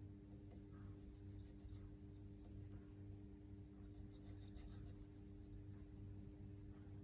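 Near silence: a faint steady hum with faint, irregular high ticks scattered through it.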